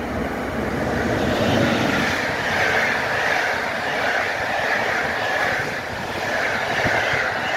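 Locomotive-hauled passenger train running past close by, wheels rumbling over the rails, growing louder in the first second or two as the coaches arrive, with a wavering high-pitched whine over the rumble.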